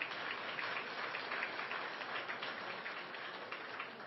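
Audience applause: a dense patter of many hands clapping that dies down near the end.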